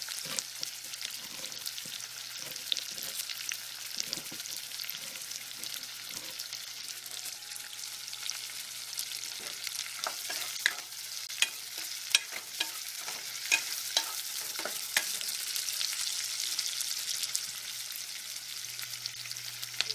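Chopped onions, red chilli and curry leaves sizzling in hot oil in a nonstick pan, a steady frying hiss. About halfway through comes a cluster of sharp clicks and taps as the mix is stirred with a wooden spatula.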